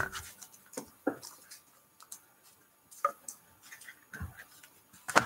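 Scattered light clicks and taps, with a soft thump about four seconds in: trading cards in hard plastic holders being handled and set down.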